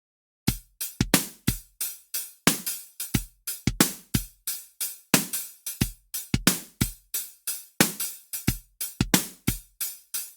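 Drum-machine beat of kick and snare hits at a steady tempo, starting about half a second in.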